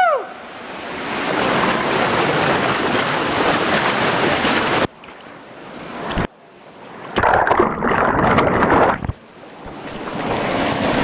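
Whitewater rushing down a narrow rock canyon chute, with water splashing right at the camera. The noise drops off sharply and comes back several times.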